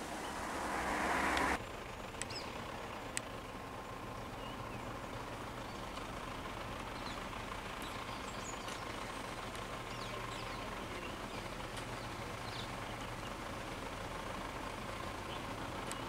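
A vehicle passing close, its road and engine noise swelling for about a second and a half, then cutting off abruptly. After that a steady low background of stopped vehicles with a faint steady hum, scattered short high chirps and a couple of sharp clicks.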